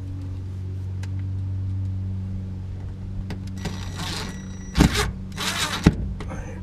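Steady low electrical hum, with hands working on the car's interior trim: rustling about four seconds in and two sharp knocks about five and six seconds in.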